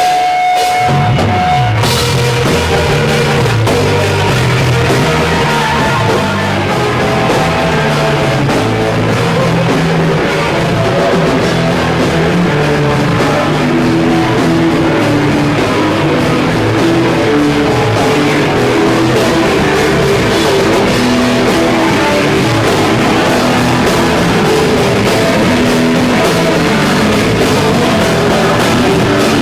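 Hardcore band playing loud: distorted guitar, bass and drum kit. A single steady held tone gives way to the full band about two seconds in.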